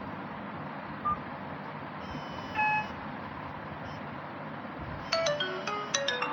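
Nokia mobile phone: one short beep about a second in, another brief two-tone beep, then a ringtone starts near the end, a quick melody of short, high, bell-like notes, all over a steady hiss.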